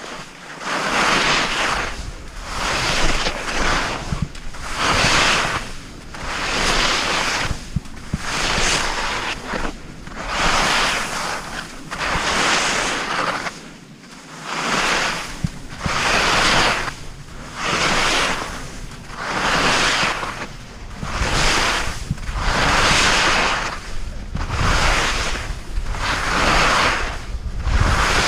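Edges scraping and hissing across the snow on each turn down a mogul slope, one swell about every two seconds. Wind rumble on the microphone grows stronger near the end.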